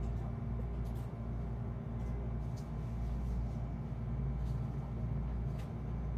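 Steady low hum of room background noise, with a few faint light ticks.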